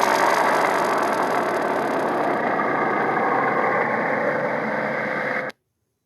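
A steady, noisy rumbling sound effect, engine-like, lasting about five and a half seconds and then cut off suddenly.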